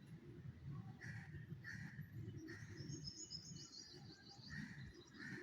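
Faint birds chirping: short calls repeating every half second or so, with a run of quick high chirps in the middle, over a low background rumble.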